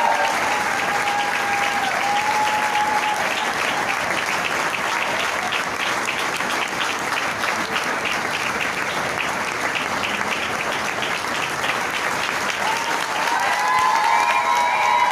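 Audience applauding: dense, steady hand-clapping. A high, drawn-out pitched sound rides over it at the start and again near the end.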